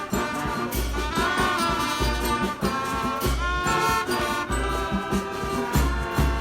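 Background music with a steady bass beat and brass-like instruments.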